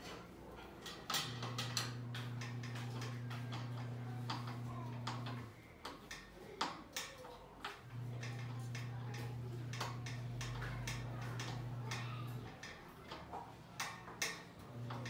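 A small power tool motor running in three stretches of about four seconds each, amid irregular sharp clicks and ticks, as bolts are driven during furniture assembly.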